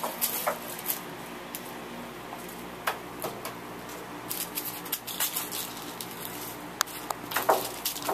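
Kittens playing on a hard vinyl floor: light, scattered taps, scuffs and patter of paws and stuffed toy mice being batted about, busier in the second half.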